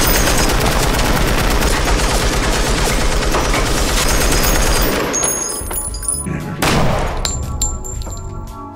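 Belt-fed M60 machine gun firing one long, unbroken burst of rapid automatic fire for about five seconds, then dying away. There is one more loud burst of noise near seven seconds, and music comes in near the end.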